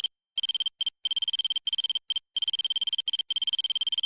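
Text-typing sound effect: rapid electronic ticks, each with a high beeping tone, in bursts broken by brief gaps.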